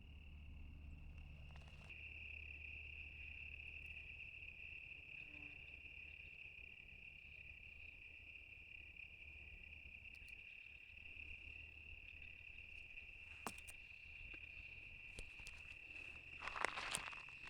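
Crickets singing in a steady, faint, high-pitched chorus. Near the end come a few footsteps.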